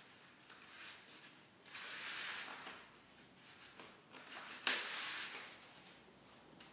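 Painted paper strips rustling and sliding against each other as they are woven by hand, with a longer swish about two seconds in and a sharper crackle just before five seconds.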